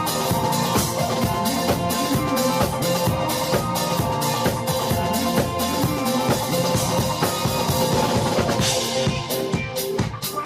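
Music with a steady drum-kit beat of bass drum and snare over held chords.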